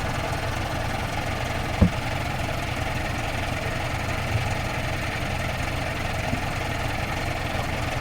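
Off-road vehicle's engine idling steadily, a low drone, with a single sharp knock about two seconds in.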